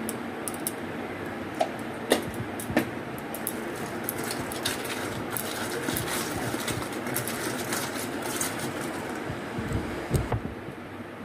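Hands tossing cut pointed gourd pieces with salt and turmeric in a stainless steel bowl: soft rustling and squishing, with a few sharp clicks in the first three seconds and a dull knock near the end, over a steady background hiss.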